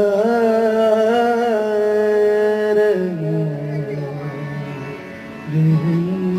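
A man singing long, wavering held notes through a PA system over a steady sustained instrumental drone, dropping to a lower note about halfway and rising again near the end.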